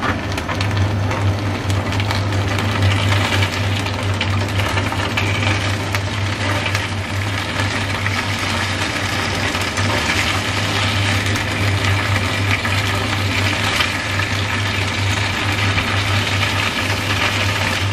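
Slices of water chestnut cake sizzling in hot oil in a non-stick frying pan: a steady crackling hiss over a steady low hum.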